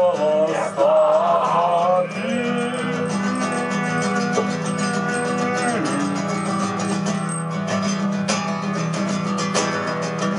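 Live music with a guitar: a wavering voice is sung over it for the first two seconds, then the guitar carries on with held notes.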